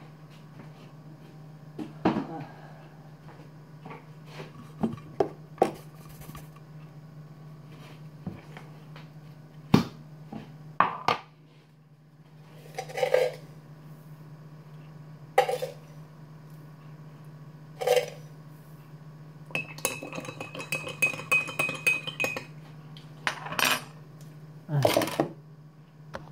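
Kitchen clatter: crockery, cutlery and metal containers knocked, set down and clinking, in scattered single knocks and short bursts with a busier rattling stretch about two thirds of the way in. A steady low hum runs underneath and stops near the end.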